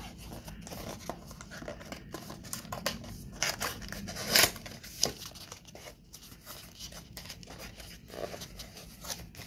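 A small cardboard box being opened by hand: its flap is pried up and the inner cardboard tray slid out, with paper scraping and rustling. A sharper tearing rasp comes about four and a half seconds in.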